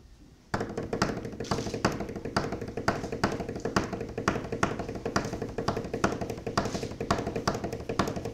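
Hands drumming a fast, steady, intricate rhythm on a tabletop, starting suddenly about half a second in.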